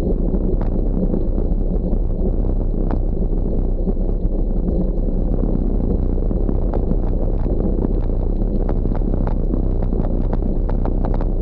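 Wind buffeting the microphone of a bike-mounted camera and bicycle tyres rolling over a gravel road, a steady low rush with scattered sharp clicks and ticks.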